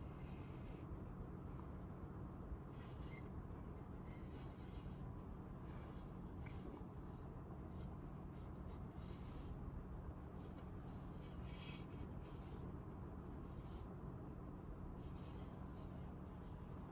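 Faint, scattered rubbing and brushing of hands handling a PC case and its side panel, over a steady low hum.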